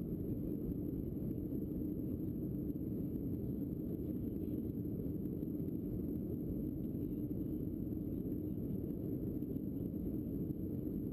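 Steady low rumble of a Boeing 737's jet engines and rushing air, heard inside the passenger cabin during the climb after takeoff.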